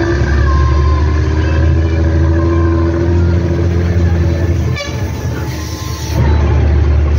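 Nissan Diesel CB87L bus diesel engine and its 'ngorok' growling exhaust, heard from the rear seat as the bus drives: a loud, deep, steady rumble. The note drops briefly about five seconds in, then picks up again.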